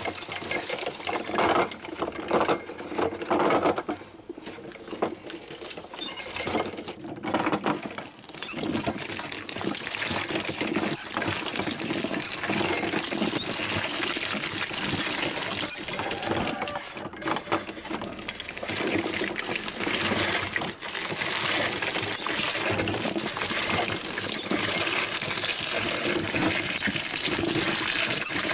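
Hand-cranked grape crusher at work: its gears and fluted rollers rattle and click as bunches of black grapes tumble into the metal hopper and are crushed. It goes in fits at first, then runs steadily from about eight seconds in.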